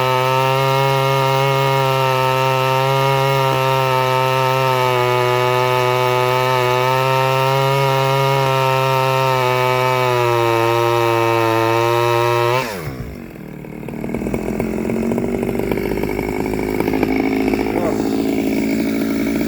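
Stihl 009L two-stroke chainsaw, on its standard single-screw carburettor, held at steady high revs for about twelve seconds. The throttle is then let off and the revs drop sharply to a lower, unsteady idle.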